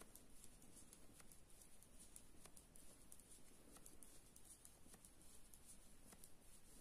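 Near silence, with faint scattered clicks of 3.5 mm metal knitting needles as garter stitches are knitted.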